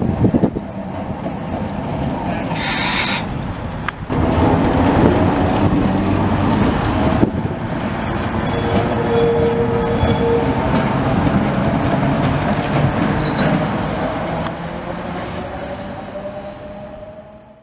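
Heritage tram passing on street track, its wheels rumbling and clacking over the rails, with a short hiss about three seconds in and a steady wheel squeal about nine seconds in. The sound fades out at the end.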